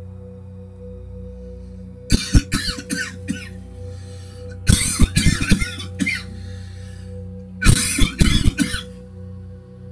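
A person coughing in three fits, each a quick cluster of harsh coughs lasting about a second, over steady droning ambient background music.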